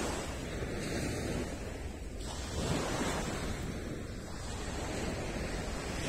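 Small waves breaking and washing up a sandy beach. The surf swells and eases every two to three seconds.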